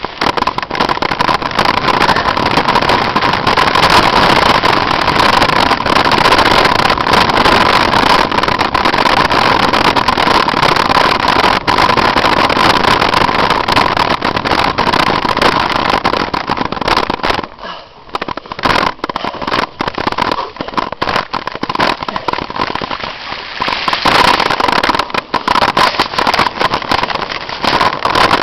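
Mountain bike riding fast down a forest dirt trail: a loud, continuous rush of wind and tyre noise, full of rattling knocks from the bike and camera jolting over roots and bumps, with a steady whining tone under it. The noise drops away briefly about two-thirds of the way through, then returns.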